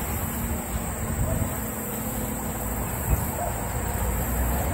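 Hands pressing and spreading wood-chip mulch around a pine seedling, a loose rustling with one short knock about three seconds in, over a steady low outdoor rumble.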